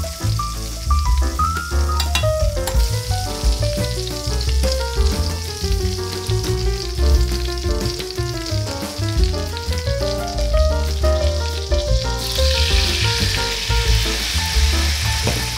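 Duck breasts frying in butter in a cast-iron pot, a steady sizzle under background music. About twelve seconds in, the sizzle grows louder and fuller as dry red wine goes into the hot pot.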